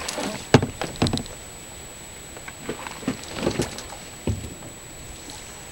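A swamped sea kayak being tipped up and emptied after a capsize: a few short, separate splashes and knocks as the water drains out and the hull shifts.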